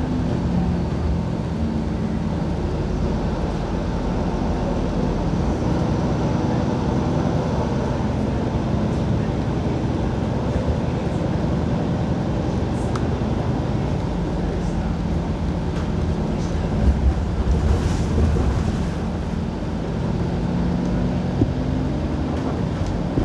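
City bus running along the road, heard from on board: a steady engine drone with road and tyre noise. A few knocks and rattles come about three quarters of the way through, and a single sharp click follows shortly after.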